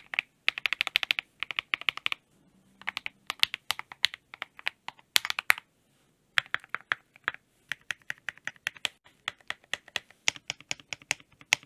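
Mechanical keyboard with Akko V3 Cream Yellow switches lubed with Krytox 205g0 being typed on in quick runs of keystrokes, with two short breaks, about two and six seconds in.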